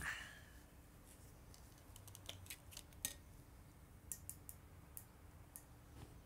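Scissors snipping paper: a string of faint, short, irregular snips, with a brief louder swish at the very start.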